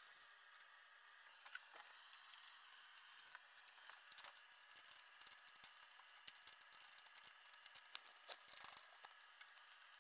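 Near silence: faint room hiss with scattered small clicks and taps of light handling on the aluminium routing frame, and a brief rustle shortly before the end.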